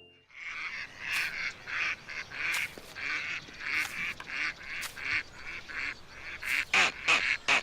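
A rapid series of short honking, quacking waterfowl calls from a cartoon bird, two or three a second, coming faster near the end.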